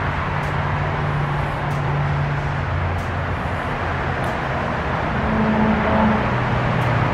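A steady low engine hum with a constant rushing noise over it, its pitch shifting slightly about five seconds in.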